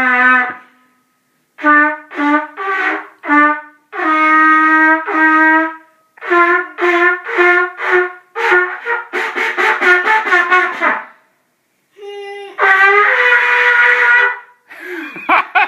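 A beginner blowing a valved brass horn: a string of short, separate honked notes, then a fast stuttering run, and after a brief pause one longer held note.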